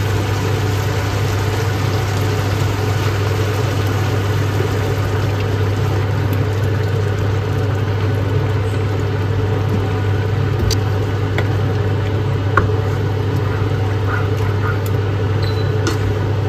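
Steady low hum of a running kitchen appliance, unbroken and even in level, with a few light clicks near the end.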